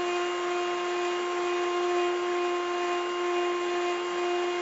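Craftsman CompuCarve computer-controlled carving machine running, its spindle giving a steady whine with a hiss as the bit carves into a wooden board.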